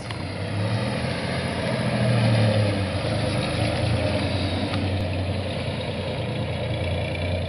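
A 1969 GMC 1500 pickup's original cast-iron 305 cubic-inch GMC V6 running as the truck pulls away and drives slowly at low revs. The engine note rises a little about two seconds in, then stays steady.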